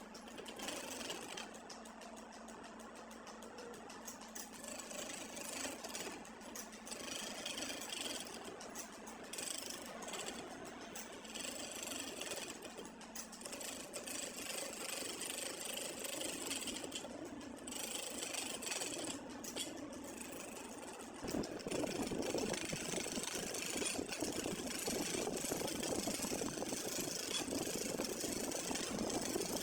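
A woodworking power tool running and cutting wood, a steady mechanical noise that grows louder and fuller about two-thirds of the way through.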